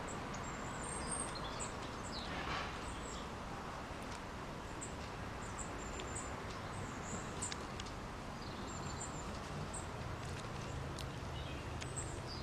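Small garden birds giving brief, high, thin chirps again and again over a steady background rumble.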